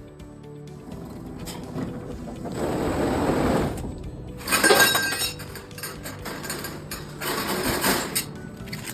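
A 3 kW fiber laser cutting thin stainless steel sheet, with its assist gas hissing and crackling in bursts: three louder bursts, about two and a half, four and a half and seven and a half seconds in, with sharp clicks between. Background music runs underneath.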